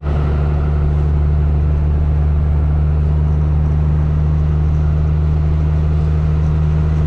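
Vehicle engine running with a steady, even drone.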